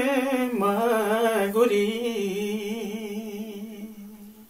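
A woman singing a Romanian doina unaccompanied, drawing out one long, ornamented note that wavers in pitch. It steps down about half a second in, then settles and fades out near the end.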